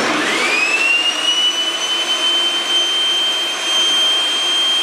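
Rock&Rocker 8-1/2-inch dustless jobsite table saw switched on and running free with no cut. Its 15-amp motor and built-in dust-collection vacuum motor start suddenly, with a whine rising for about a second as they spin up, then running at a steady high whine over a rushing of air.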